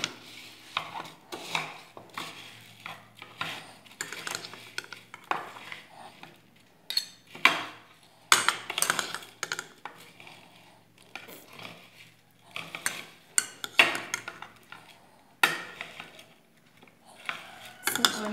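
Red plastic spoon stirring puffed rice in a glass bowl: irregular scrapes and clicks of the spoon against the bowl, with the rustle of the dry rice being turned over.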